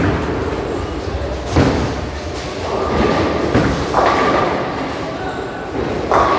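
Tenpin bowling alley noise in a large hall: bowling balls thudding onto and rolling down the lanes and pins crashing, with sudden loud hits about a second and a half in, about four seconds in, and near the end, each ringing on in the hall.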